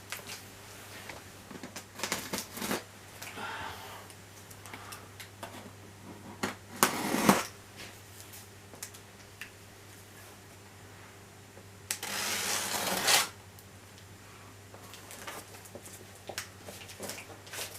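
A cardboard box and its packaging being handled and opened: scattered clicks and rustles, with two louder scraping, tearing noises of about a second each, roughly 7 seconds in and again about 12 seconds in.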